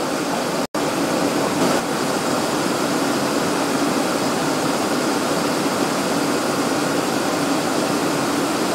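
Steady cockpit noise of a Cessna Citation Encore twin-turbofan business jet in flight, a constant rush of airflow and engine noise. It cuts out for an instant about a second in.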